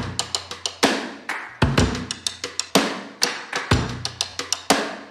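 Drum-led intro music: a quick beat of sharp percussive hits with heavy low drum thumps every second or so.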